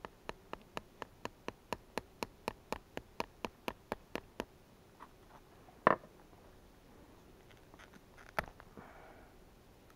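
A fishing reel being cranked, giving a run of even ticks about four a second that stops after about four and a half seconds, followed by two single knocks in the boat.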